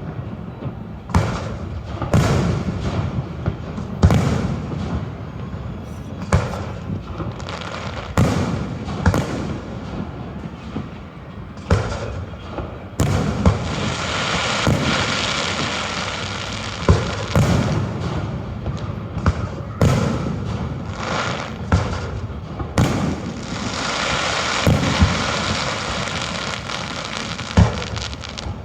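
Aerial fireworks shells bursting in an irregular string of booms, roughly one every second or two, some with a trailing rumble. From about halfway through, a steady rushing hiss fills in between the bangs.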